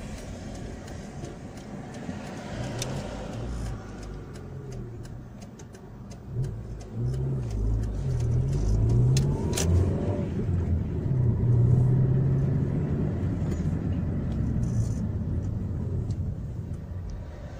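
Car engine and road rumble heard from inside the moving car's cabin; about halfway through the engine pulls harder, its note rising and stepping as the car accelerates through the gears.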